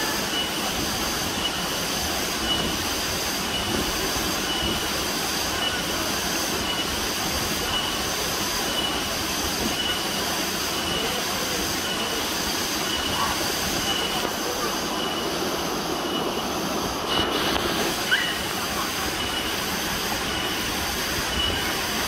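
Small waterfall pouring over a rock ledge into a pool: a steady rush of water. Over it, a thin high pulse repeats evenly, a little more than once a second.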